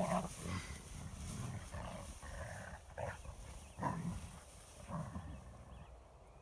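Dogs growling in play while they wrestle, in short bursts every second or so, the loudest right at the start.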